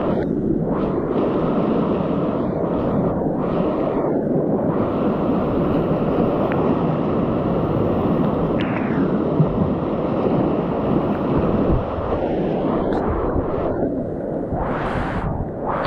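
Rushing whitewater of river rapids, a loud steady rush of water with a few brief dips.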